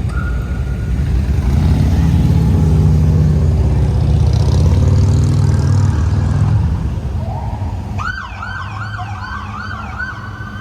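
Motorcade vehicles pulling away with a loud engine rumble that swells and then fades. About eight seconds in, a police siren starts a fast up-and-down yelp.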